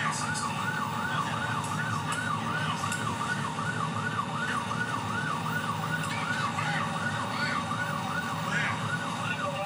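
Police patrol car's siren in fast yelp mode, a rising-and-falling wail repeating about three times a second, heard from inside the car over the steady rumble of its engine and tyres at highway speed.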